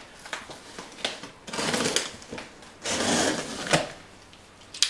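Packing tape on a cardboard box being slit with a utility knife and pulled, with the cardboard rubbing, in several short noisy strokes and a sharp click near the end.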